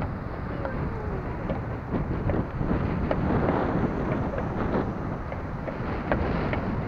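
Wind buffeting the microphone with a steady low rumble, over small waves washing across the sand in the shallows.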